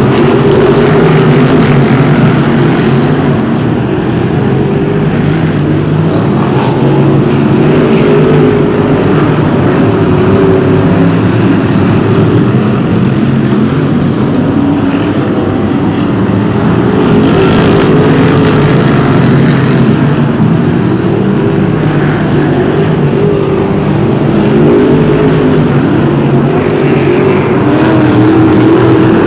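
Several BriSCA F1 stock cars' V8 engines running at racing speed together, a dense overlapping engine drone whose pitch keeps rising and falling as the cars lap.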